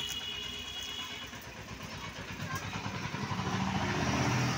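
Motor scooter engine running as it approaches and passes close by, getting louder toward the end.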